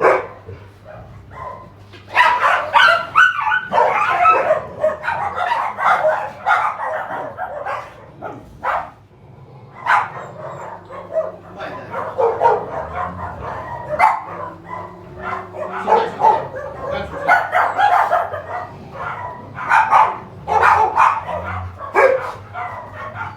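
Dogs barking and yipping in repeated bursts, several at once, with a short lull about eight seconds in.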